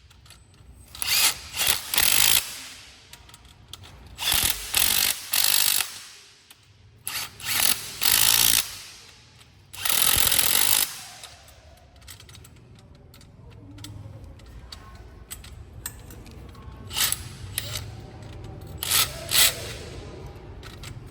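Makita DTW300 cordless impact wrench run in a series of short bursts, each under a second to about a second long, with pauses between; a quieter stretch lies in the middle.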